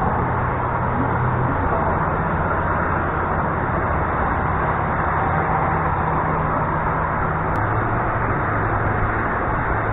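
Steady outdoor rumble of traffic, with a low engine drone that shifts in pitch about a second and a half in and again near the end.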